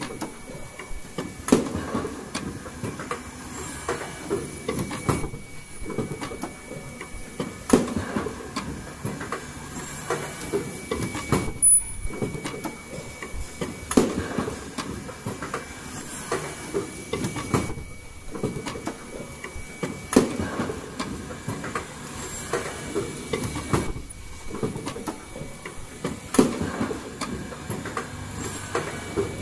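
Automatic N95 cup mask machine running, its fixture conveyor and welding heads clattering in a regular cycle with a louder burst about every two seconds and short hisses.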